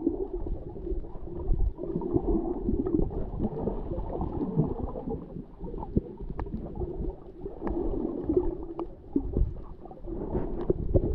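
Muffled water noise picked up by a camera in an underwater housing: a low, churning gurgle, with a few sharp clicks in the middle and near the end.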